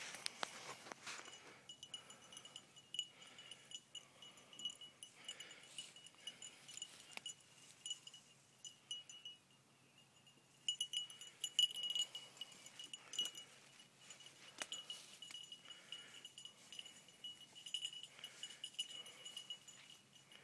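Faint bell-like tinkling with a steady high ring, swelling and fading several times, over light crackling of twigs and dry brush being pushed through.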